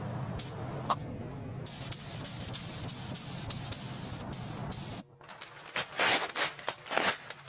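A steady spraying hiss over a low hum, with scattered clicks. About five seconds in it gives way to a few short, uneven bursts of hiss.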